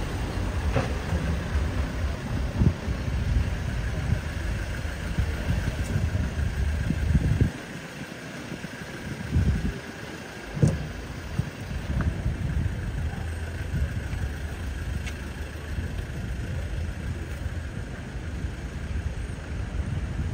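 City street traffic: cars and engines running nearby, with a fluctuating low rumble that drops away briefly about seven and a half seconds in and again near ten seconds, and a few sharp clicks.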